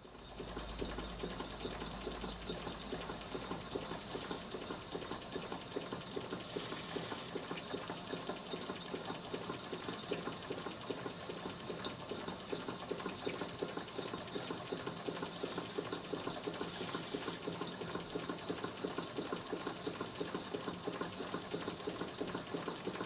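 Three small Cotswold Heritage model steam engines (Perseus, Ariel and Isis) running together on steam, a fast, even mechanical beat with a light steam hiss. They are running smoothly, the left-hand Isis engine's valve timing freshly reset to let steam in just before top dead centre.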